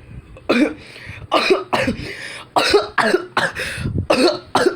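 A man coughing in a long, harsh fit: about a dozen coughs in quick clusters. It is an acted, exaggerated imitation of an elderly person's cough.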